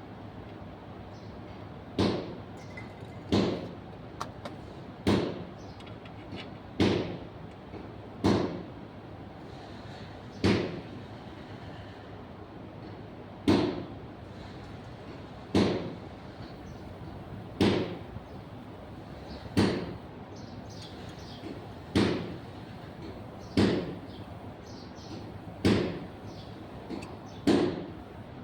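A series of sharp knocks, about fourteen of them, roughly one every two seconds, each dying away quickly, over a steady background hiss.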